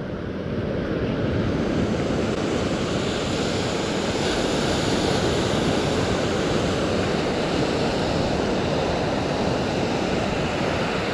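Ocean surf washing onto a sandy beach, a steady rush.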